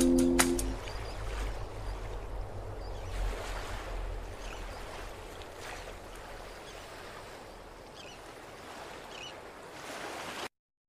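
The song's last held notes stop within the first second. A steady rushing, surf-like noise with a low rumble follows, fading slowly, then cuts off abruptly near the end.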